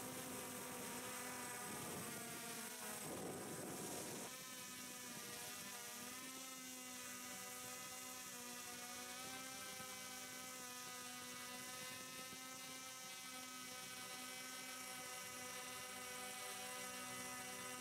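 Hovering multicopter: several brushless motors and propellers whining together as a steady cluster of slightly wavering tones. There is a short rush of noise about three seconds in.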